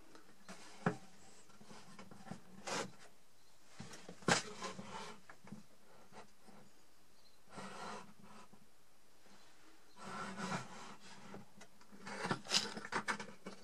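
Quiet, scattered clicks and short spells of rubbing from a homemade table saw's hand-worked blade lifting and tilt mechanism as the stationary blade is raised and brought back upright. The clicks come closer together near the end.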